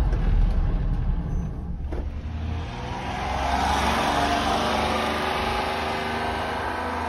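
1994 Honda Acty mini truck's small three-cylinder engine running, heard first as a steady low hum from the cab. After a cut about two seconds in, the truck drives past and away: engine and tyre noise swells about four seconds in, then slowly fades.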